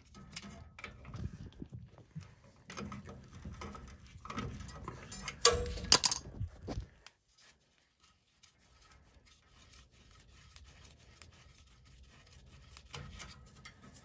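Close hand-and-tool handling noises at a boiler's gas control valve as the thermocouple is being taken off: rubbing, scraping and small clicks, with a few sharp metallic clicks about six seconds in. After that it goes almost quiet, with only faint handling toward the end.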